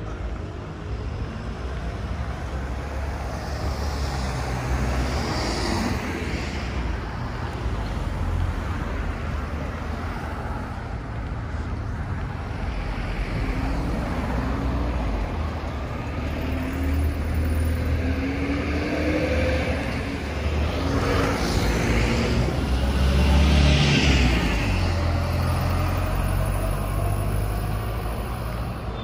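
Street traffic on a busy main road: a steady rumble of engines and tyres, with several vehicles passing close one after another, the loudest about four-fifths of the way through.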